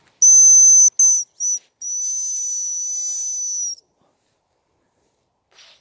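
Hazel grouse decoy whistle blown close by: a loud, thin, very high whistle lasting under a second, two short notes, then one long steady whistle of about two seconds that dips slightly at its end. Near the end come two faint short high sounds.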